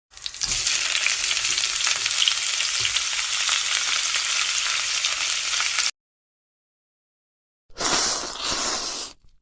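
Food sizzling in a hot frying pan, a steady hiss for about six seconds that cuts off suddenly. After a short silence, a second, shorter burst of sizzling follows.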